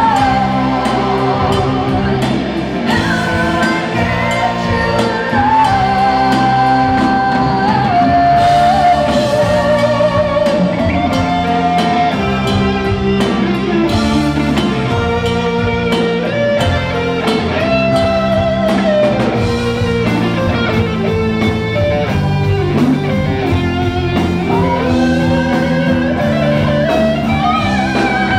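Live rock band playing, led by an electric guitar solo on a Stratocaster-style guitar: long held notes with bends and vibrato over drums and bass.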